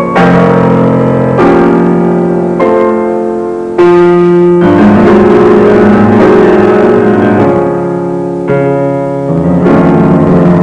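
Slow piano music: full chords struck one after another, each left to ring before the next.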